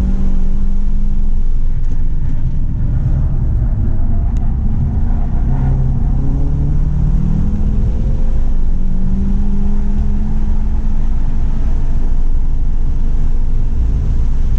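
Stage 2-tuned 2017 Volkswagen GTI's turbocharged 2.0-litre four-cylinder engine on track, its pitch rising under acceleration, dropping, and rising again over steady road and wind noise.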